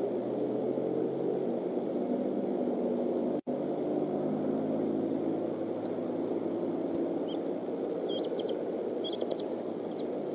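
Steady low outdoor rumble from the nest camera's microphone, cut by a split-second dropout a few seconds in. Near the end come several short, high bird chirps.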